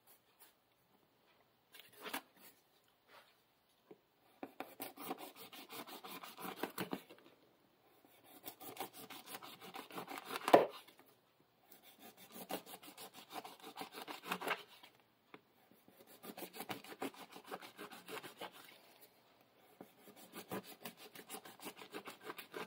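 Spyderco Paramilitary 2 folding knife sawing through a crusty loaf of bread on a wooden cutting board, rasping through the crust in about five separate slices of a couple of seconds each. There is one sharp, louder crack about ten and a half seconds in.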